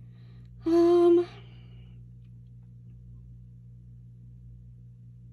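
A woman's short hummed "hmm" on one flat pitch, held about half a second, roughly a second in. A steady low hum runs underneath.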